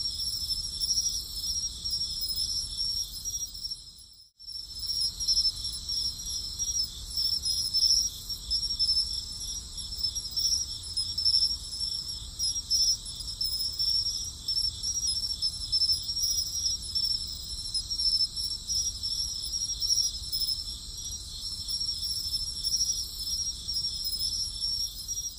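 Chorus of crickets chirping steadily in several overlapping high pitches, fading out briefly about four seconds in and coming straight back.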